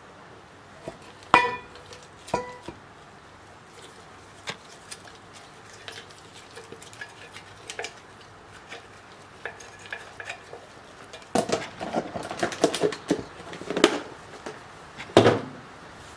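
Dishes and a utensil clinking and clattering while the dishes are buttered. Two ringing clinks come near the start, then scattered light taps, a busy stretch of clattering about two thirds of the way in, and a louder knock near the end.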